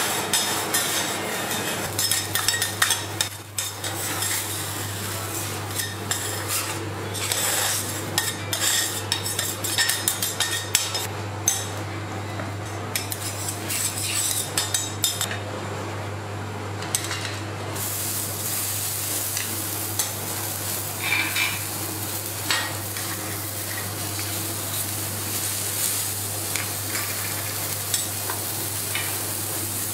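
Metal teppanyaki spatulas scraping and clicking on a steel griddle while working coarse salt, over a steady sizzling hiss. The clicks are frequent for the first half and thin out after about 18 seconds, leaving mostly the sizzle, with a steady low hum underneath.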